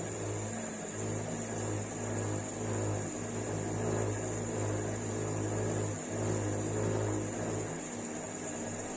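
LG F4WV309S3E front-loading washing machine running with a steady low hum, in stretches of a few seconds broken by brief dips: the noise the owner reports as a fault.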